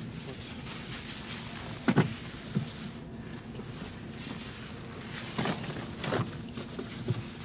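Steady low hum inside a coach, with a few soft knocks and rustles as belongings are handled and pushed into the overhead luggage rack, the loudest knock about two seconds in and several more near the end.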